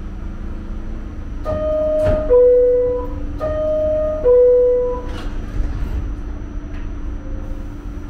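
New York City subway car's door-closing chime: a two-note descending "ding-dong", sounded twice about two seconds apart, over the steady hum of the stopped train. It signals that the doors are about to close at the station.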